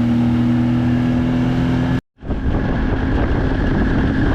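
Bass boat's outboard motor running at a steady speed, with wind and water rushing past. About two seconds in the sound cuts out for a moment and comes back as a rougher rush of wind and hull noise, the engine fainter beneath it.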